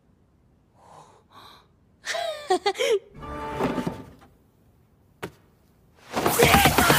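Anime sound effects of a wooden box's door being opened from inside: faint knocks, a short vocal sound, a scraping creak, and a sharp click about five seconds in. A loud frightened yell breaks out near the end.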